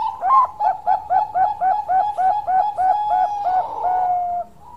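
Zebra dove (Bangkok-bred perkutut) singing: a quick run of about a dozen short coos, about three a second, ending in one longer, slightly falling note.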